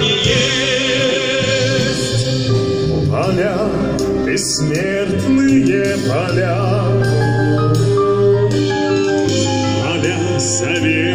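Military brass band playing with a male vocal soloist singing over it, holding long notes with a wide vibrato.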